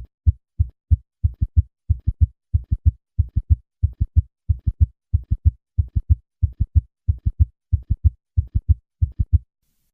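Heart sounds of a patient with a summation gallop: a fast heartbeat of about one and a half beats a second, each cycle three short low-pitched thumps. The third and fourth heart sounds are fused into one loud extra sound midway between cycles, a sign of the fast heart rate. The beating stops shortly before the end.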